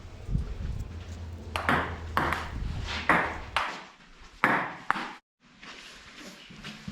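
Table tennis rally: a ping pong ball clicking sharply off paddles and table at an irregular pace, several hits about half a second to a second apart.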